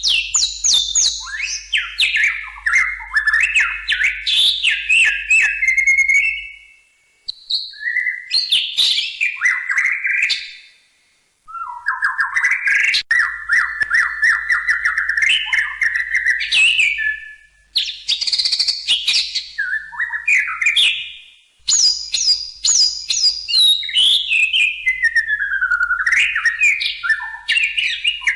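White-rumped shama (murai batu) singing: long, varied phrases of loud rising and falling whistles and rapid chips, in about five bursts broken by short pauses.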